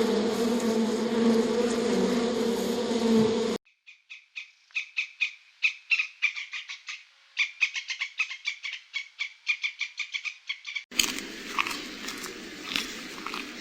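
A steady insect-like buzz that cuts off abruptly. Then a rapid train of short, sharp chirping calls from a small animal, about four a second, for some seven seconds. From about three seconds before the end comes a steady hiss.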